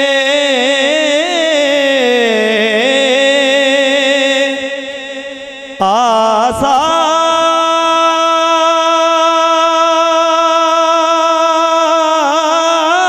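A man singing an Urdu naat into a microphone, drawing out the words in long wavering held notes. A melismatic phrase falls and fades away, then a new long note comes in suddenly about six seconds in and is held steady, with a brief knock just after it starts.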